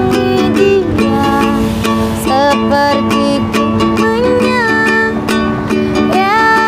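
Acoustic busking music: ukulele and guitar strummed in a steady rhythm, with a melody line above that glides and bends in pitch.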